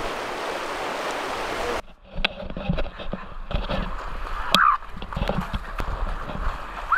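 Steady wind and lake-surf hiss, cut off abruptly about two seconds in. Then muffled sound from a GoPro action camera takes over: irregular thuds and splashes of feet running through shallow lake water, with brief voices.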